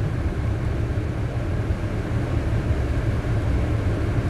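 Steady low rumble of a stationary car idling, heard from inside its cabin.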